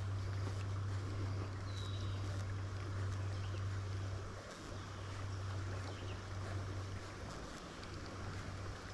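Spinning reel cranked steadily on a lure retrieve: a low, even gear hum that breaks off briefly about halfway through, over a light hiss of breeze and moving water.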